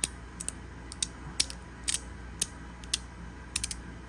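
HapticEDC 3D-printed three-click fidget slider being slid back and forth, snapping into its detents: sharp, irregular clicks, some in quick pairs, about ten in all.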